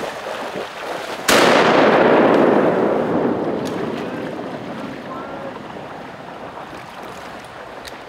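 A single shotgun blast about a second in, followed by a long rolling echo that fades away over several seconds.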